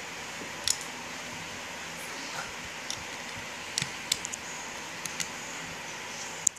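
Small sharp plastic clicks of Lego bricks being handled and pressed together, irregular and scattered, over a steady hiss.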